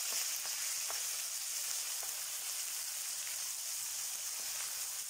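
Ginger-garlic paste, slit green chillies and whole spices sizzling steadily in hot oil in a karahi, with a few faint ticks.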